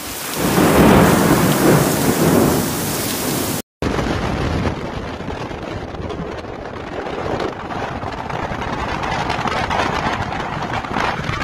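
Typhoon wind and heavy rain in a street, loud and gusting with a low rumble. After an abrupt cut about four seconds in, a steadier roar of storm wind and surf from waves breaking against a breakwater.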